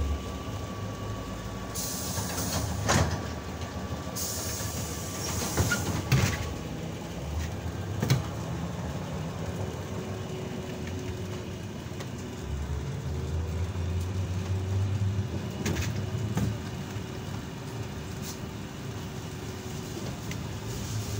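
A ZiU-682G trolleybus heard from inside while it rides, with steady running noise, a steady whine, and rattles and knocks. There are two bursts of hissing in the first few seconds.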